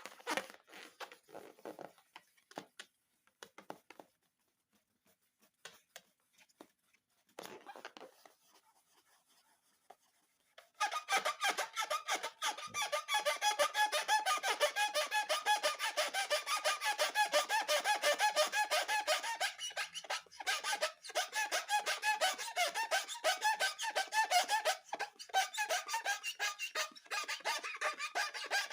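Rubber balloons squeaking as they are rubbed and handled: scattered light clicks and rustles at first, then a dense, fast run of squeaks from about ten seconds in.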